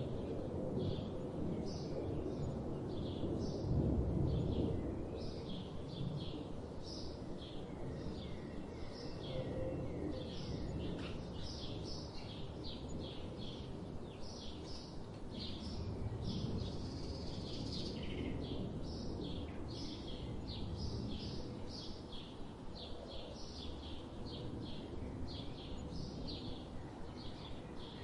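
Birds chirping, a steady run of short high notes repeating throughout, over a low, even background noise that swells briefly about four seconds in.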